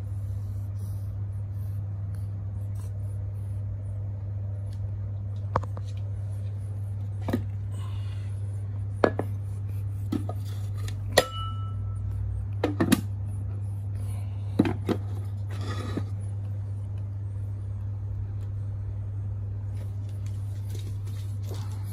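Cat eating wet food from a ceramic bowl, with scattered clicks and clinks of the bowl being knocked through the middle and one clink that rings briefly, over a steady low hum.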